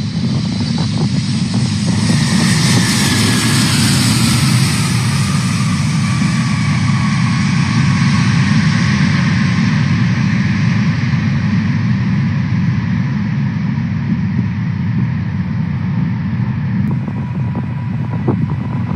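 Engines of a four-engine widebody jet airliner roaring as it lands and passes close by, with a whine that falls in pitch as it goes past. The sound changes abruptly near the end.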